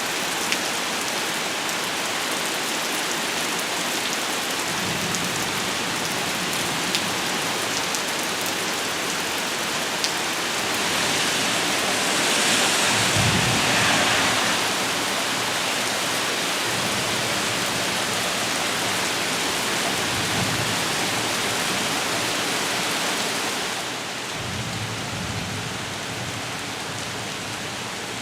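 Heavy rain falling steadily during a thunderstorm, with low rumbles of thunder now and then. The rain is heaviest about halfway through and eases near the end.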